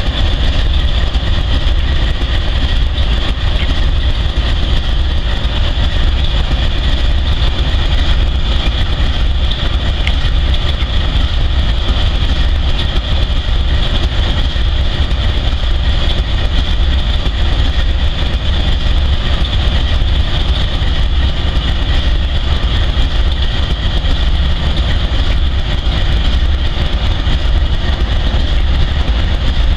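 Diesel-electric freight locomotives running, a steady deep rumble with a constant high-pitched whine on top.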